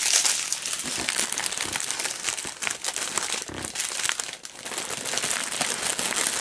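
Sealed plastic packets of diamond painting drills crinkling continuously as they are handled and shuffled, a dense crackly rustle.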